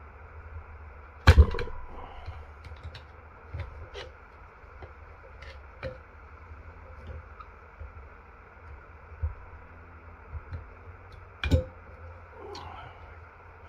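Metal tool and small parts clicking and tapping against a Mercury six-cylinder distributor housing as it is taken apart by hand. Two sharp metallic knocks with a brief ring stand out, about a second in and near the end.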